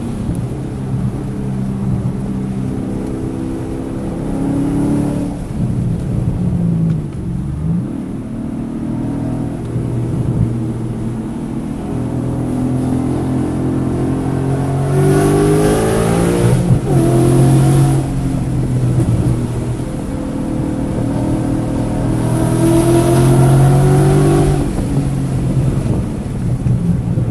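Car engine under hard acceleration on a race track, its pitch climbing under throttle and dropping off several times as the driver shifts or brakes, about six seconds in, around seventeen seconds and near the end. The engine was misfiring on cylinders 1, 3 and 4 during this session, with the check engine light blinking.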